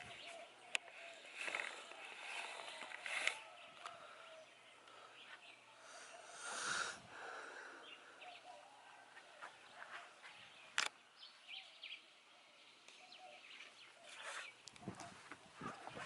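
Faint outdoor ambience with scattered bird chirps and calls, broken by a few sharp clicks.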